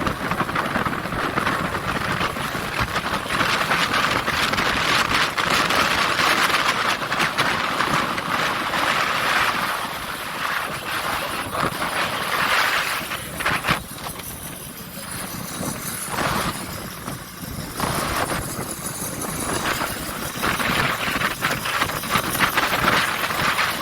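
Steady vehicle or machinery noise that eases about halfway through and then comes and goes in surges.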